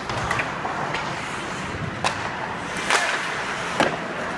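Sharp cracks of hockey sticks striking the puck, four of them, the loudest two near the end, over steady rink noise.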